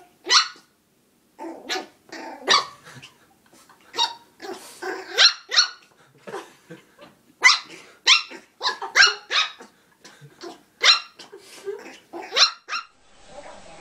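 Small puppy barking at its own reflection in a mirror: a rapid, irregular run of short, high-pitched yaps that stops shortly before the end.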